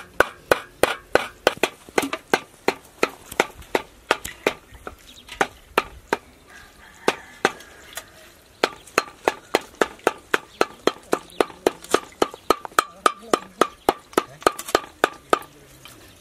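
Cleaver chopping raw chicken on a round wooden log chopping block: rapid sharp knocks, about three to four a second, as the meat is minced, with a short break about halfway through.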